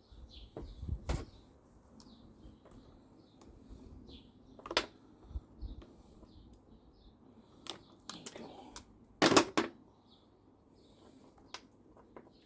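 Scattered clicks and light knocks of plastic parts being handled as the old fuel lines are worked off a petrol strimmer's fuel tank, with a louder cluster of knocks about nine seconds in.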